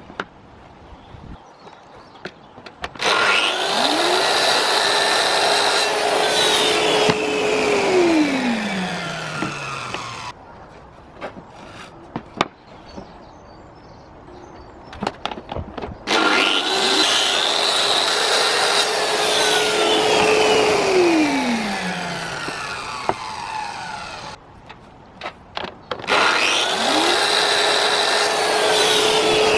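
Electric power saw cutting wood three times. Each time the motor spins up to a steady whine, runs through a cut of a few seconds, then slowly winds down in pitch as the blade coasts to a stop. Light knocks from handling the wood come between the cuts.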